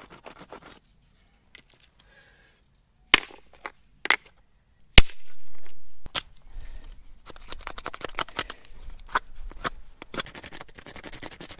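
Sharp cracks as thin flakes of layered rock are snapped off an outcrop, the loudest about five seconds in. Then rapid scraping strokes as a stick is whittled with a sharp stone flake used in place of a knife.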